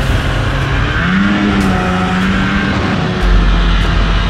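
Ski-Doo MXZ snowmobile engine running under throttle, heard from the rider's seat with wind and track noise; its pitch climbs about a second in and holds for a couple of seconds before dropping back to a deeper rumble.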